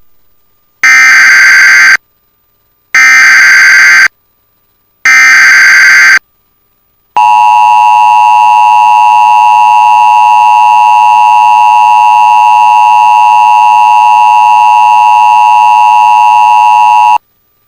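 Emergency Alert System broadcast of a flash flood warning: three one-second bursts of buzzing SAME header data tones, each a second apart, then the steady two-tone EAS attention signal for about ten seconds, which cuts off suddenly.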